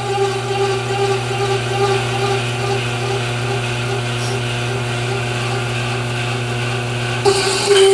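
Metal lathe running with a corner rounding end mill fed slowly into the spinning part as a form tool, cutting a radius: a steady motor hum under the cut. About seven seconds in the sound jumps louder, with a ringing tone of light tool chatter, typical when so much of the cutter's edge is in contact with the work.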